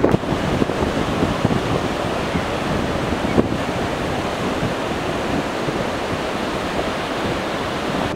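Steady rush of surf washing onto a sandy beach, with some wind on the microphone.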